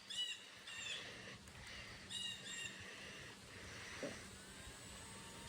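A bird calling: short, high chirps in pairs, repeating every second or two. A faint steady whine comes in near the end.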